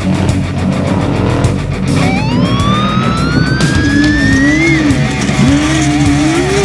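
Heavy rock music with electric guitar: a long rising slide about two seconds in, then held low bent notes with wide vibrato over a dense band backing.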